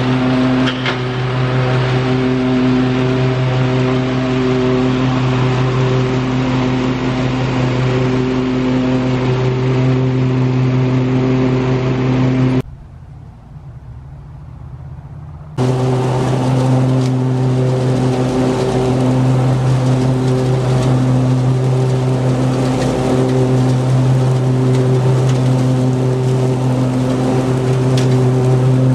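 The engine and cutting deck of a Cub Cadet Ultima ZT1 zero-turn mower running at a steady speed while it mows leaf-covered grass. The drone is loud and even. It drops sharply quieter for about three seconds partway through, then comes back at full level.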